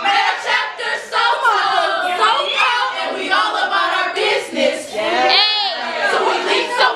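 A group of women chanting and singing together in unison as they step. A little over five seconds in, one high-pitched call rises and falls above the group.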